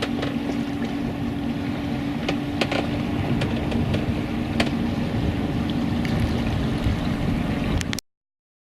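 Sailing yacht under way: water and wind noise with a steady low hum and a few small knocks, cutting off suddenly near the end.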